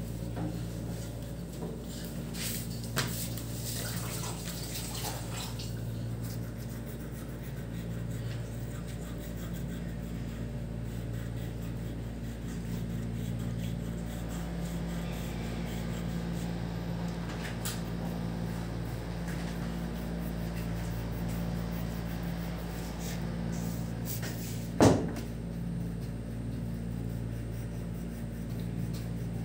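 Faint scratching of a wax crayon colouring on paper over a glass tabletop, against a steady low hum. A single sharp knock sounds about 25 seconds in, with a smaller click early on.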